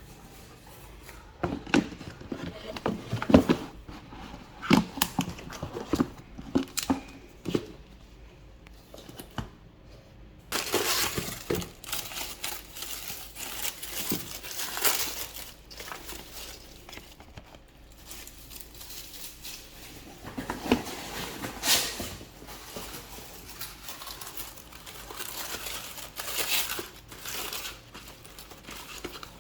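Handling of phone packaging: a run of knocks and taps for the first several seconds, then plastic wrapping crinkling and tearing in long rustling stretches from about a third of the way in.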